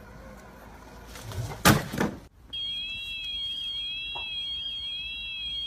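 A robotic lawn mower's alarm sounding, beginning about two and a half seconds in: a steady high-pitched tone with a warble that rises and falls about once a second. Before it comes a single short bump.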